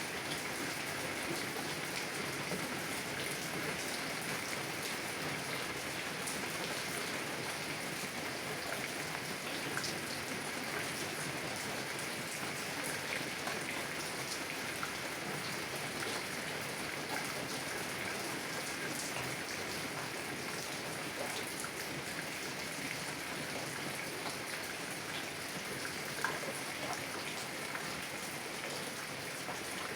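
Steady heavy rain drumming on a car's roof and windows, an even hiss with scattered sharper taps of single drops.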